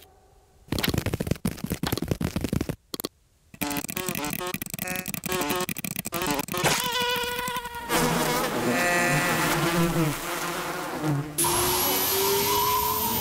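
Cartoon insect sound effects: choppy bursts of wing buzzing, then squeaky wavering chirps, and near the end a steady flight buzz with a slowly rising whine as an insect flies off fast.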